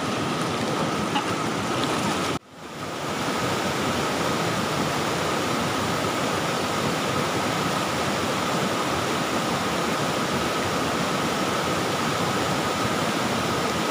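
Fast river current rushing over rocks, a steady rush that breaks off for a moment about two and a half seconds in and then carries on.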